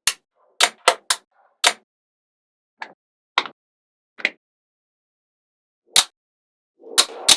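Small magnetic balls clicking sharply as they snap onto one another, about a dozen separate clicks at uneven intervals, with a short rattling clatter near the end.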